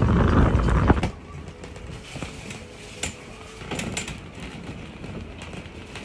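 Wind buffeting the microphone, loud for about the first second and stopping abruptly. It is followed by a quieter stretch with a few scattered light knocks and clicks.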